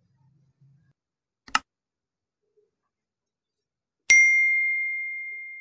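Subscribe-button animation sound effect: a single short click about a second and a half in, then a bright bell ding near the end that rings on one clear tone and fades slowly.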